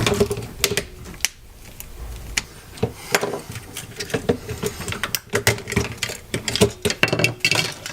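Irregular small clicks and taps of a small Phillips screwdriver and metal and plastic lightsaber hilt parts being handled while its screws are undone.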